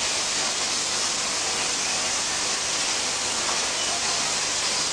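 Steady, even hiss of automatic syringe assembly machinery running, with no distinct beats or clanks standing out.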